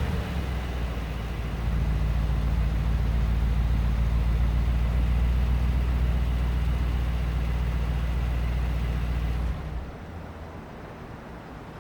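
2019 Mercedes-AMG G63's twin-turbo 4.0-litre V8 idling steadily through its exhaust, a deep even rumble that drops away sharply near the end.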